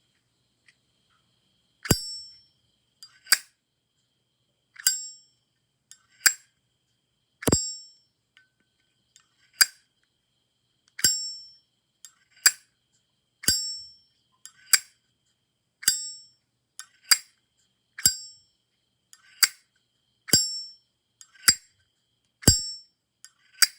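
A small high-pitched bell struck over and over, about eighteen times at roughly one strike every second or so, each a sharp ding that dies away within half a second.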